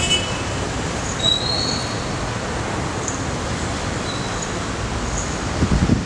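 Steady street traffic noise from a busy intersection, with a brief high squeal about a second in and a few low thumps near the end.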